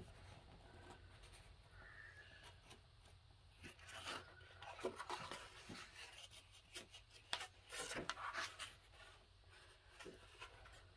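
Thick cardstock pages of a coloring book being turned: faint scattered rustles and flaps, busiest from about four to nine seconds in.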